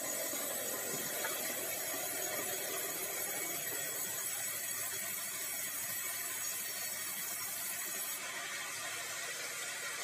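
Band sawmill headrig running steadily: a continuous mix of machine hum and a bright, even hiss from the band saw working through bengkirai hardwood on the log carriage.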